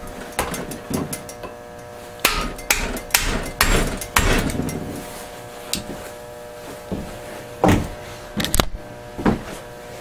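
Irregular knocks and hammer taps on a snowblower auger shaft assembly as a part is driven onto the shaft: a busy run of blows in the first half, then single knocks further apart.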